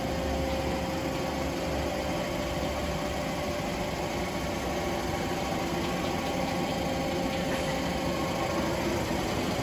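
Steady mechanical hum of a powered-up 1997 Okuma Crown 762S-SB CNC lathe running, with a faint steady tone over the hum and no strikes or changes in speed.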